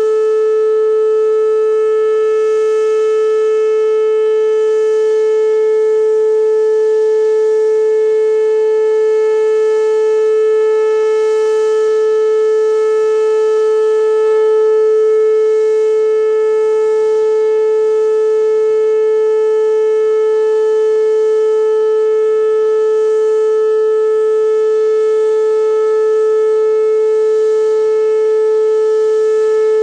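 Whelen WPS-2809 electronic outdoor warning siren sounding one loud, steady tone with no rise or fall in pitch: the steady alert signal, sounded here as a siren test.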